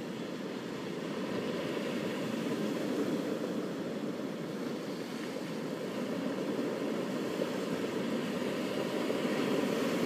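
Ocean surf washing onto a beach: a steady low rush of waves that swells around three seconds in, eases, then builds again near the end.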